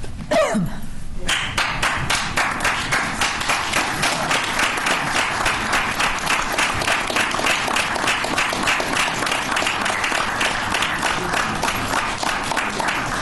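Small crowd applauding, beginning about a second in and keeping up steadily with dense, even clapping.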